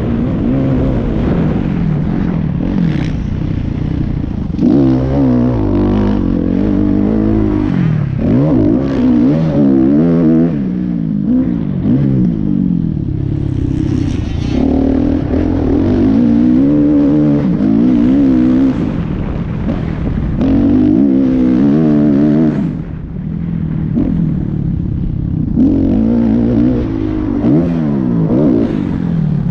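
Kawasaki KX450F dirt bike's single-cylinder four-stroke engine under riding load, its pitch repeatedly climbing and dropping as the throttle is opened and closed. There is a short dip in loudness partway through.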